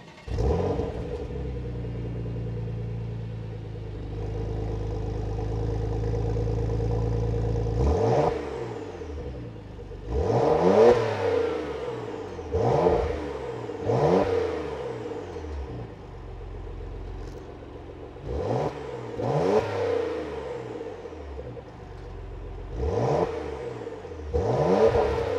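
Porsche Macan engine revved through its sport exhaust while parked. A sudden flare at the start settles into a steady idle, and from about eight seconds in the engine is blipped about eight times, each rev rising quickly and falling back.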